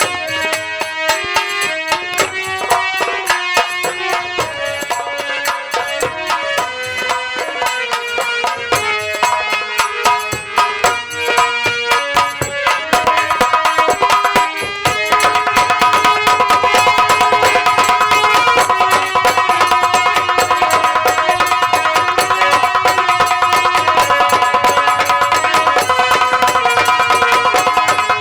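Live Indian folk-theatre band playing an instrumental: hand drums beating a rhythm under a melody. About fifteen seconds in, the playing turns louder and denser, with held high notes over fast, even drumming.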